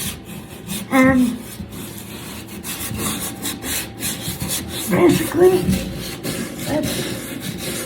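Drywall being sanded by hand, the abrasive scratching over the wall in a quick run of short, scratchy rubbing strokes as rough patches are smoothed before painting.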